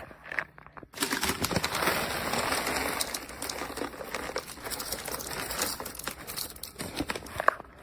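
Proctor Silex electric blade coffee grinder grinding coffee beans: a dense rattling of beans being chopped by the spinning stainless steel blades. It starts about a second in, is loudest at first and eases off, then stops with a sharp click near the end.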